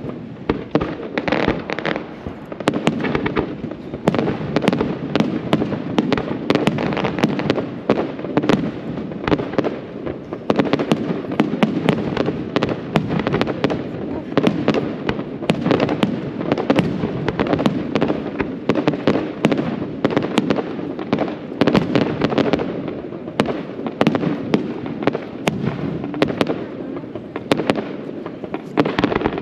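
Fireworks display with aerial shells bursting: a dense barrage of overlapping bangs and crackles, several a second, with no break.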